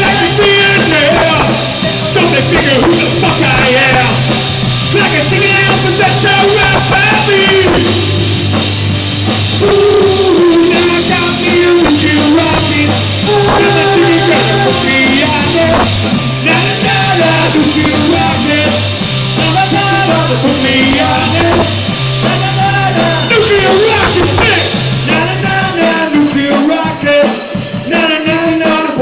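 Live glam rock band playing loudly: electric guitars, bass and drum kit, with a lead vocal over them and bass notes changing every couple of seconds.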